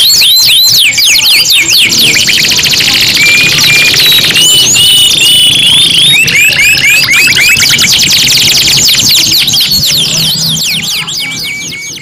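Three domestic canaries singing at once, overlapping high-pitched rapid trills, rolls and quick repeated sweeping notes, fading out near the end.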